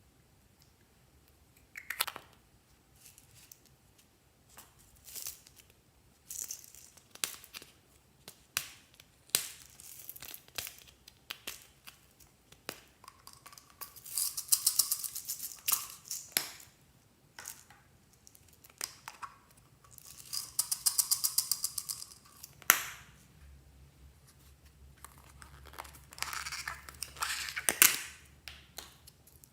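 Clear slime being handled and mixed by hand: scattered sticky clicks and crackles, with two stretches of fast crackling a few seconds apart.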